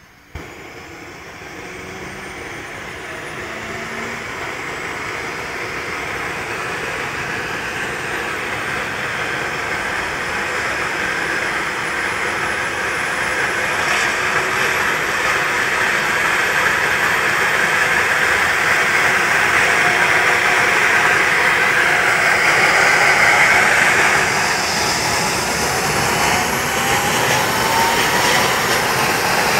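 Eurocopter EC135 twin-turbine helicopter starting up: the turbine whine starts suddenly about half a second in, then climbs steadily in pitch and loudness as the engine spools up and the main rotor gathers speed. A second rising tone comes in near the end.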